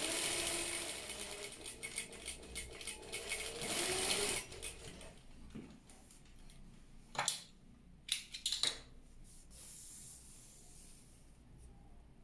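Industrial single-needle sewing machine stitching a seam along a narrow silk strip, running for about four seconds and then stopping. A few sharp clicks and taps follow as the work is handled and pulled free.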